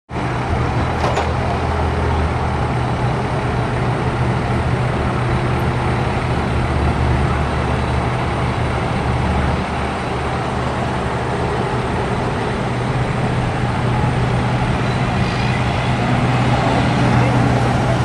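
Steady low drone of heavy vehicle engines running, mixed with road traffic noise.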